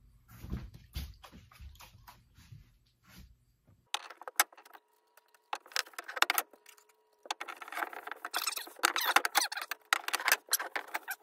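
Hand tools working wood: quick runs of scraping strokes and sharp knocks, starting about four seconds in after a few faint clicks.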